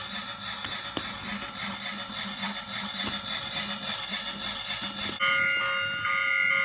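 Toy train's motor and wheels whirring and rattling steadily along. About five seconds in, a louder steady electronic sound effect with several pitches at once plays for about a second and a half.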